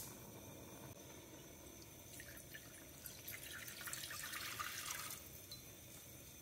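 Water poured from a glass jug into an empty glass saucepan: a light splashing trickle that starts about two seconds in and stops about five seconds in.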